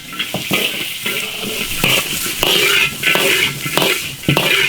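Pieces of air-dried chicken stir-frying and sizzling in an iron wok, with a spatula scraping and knocking against the wok about twice a second.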